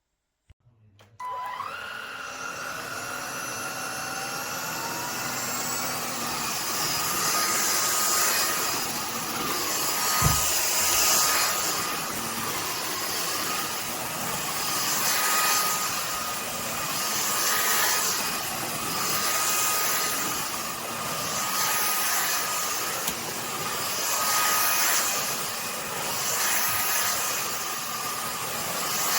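SunSare cordless stick vacuum switching on: about a second in its motor spins up with a rising whine, then runs with a steady high whine that swells and fades about every two seconds. There is a single knock about ten seconds in.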